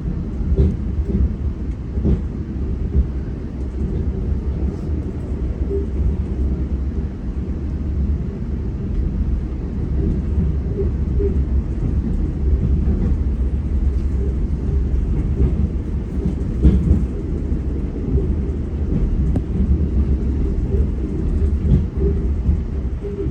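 GO commuter train running at speed, heard on board: a steady low rumble of wheels on rail with occasional knocks.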